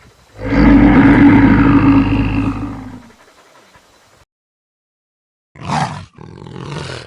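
A large animal roaring once for about three seconds, deep and loud, followed after a pause by two short calls near the end.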